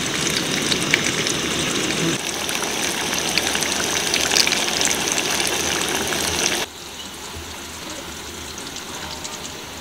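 Steady rush of water, a dense hiss without a beat, which drops abruptly to a softer hiss about two-thirds of the way through.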